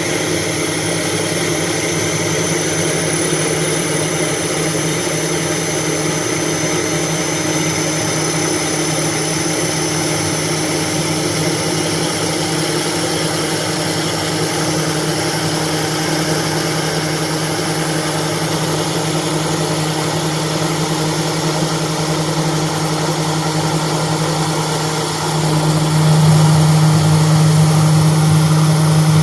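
CNC router spindle running and milling slots in an aluminium composite panel: a steady machine hum with a high whine over it. About 25 seconds in the hum gets louder.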